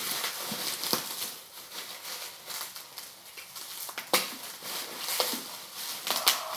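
Rustling and handling of the packaging of a boxed USB mini air cooler during unboxing, with three sharp knocks: about a second in, about four seconds in, and near the end.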